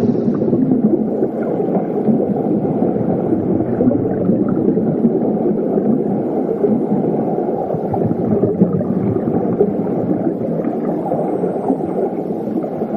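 Steady, muffled rushing of water and rain, with no distinct engine note or impacts.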